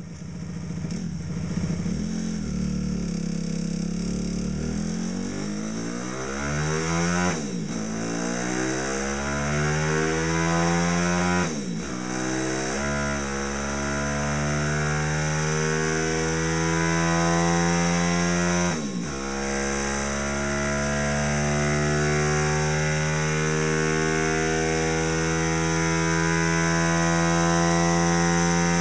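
Monkey bike's 170cc four-valve single-cylinder four-stroke engine accelerating on a rolling-road dyno, pitch climbing in each gear with three upshifts at about a quarter, two fifths and two thirds of the way through, then rising slowly in top gear. The very tall final-drive gearing makes the clutch slip slightly.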